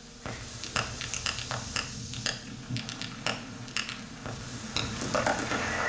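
Sparse, irregular clicks and ticks over a low hum: a sound-effect passage in the dance piece's soundtrack.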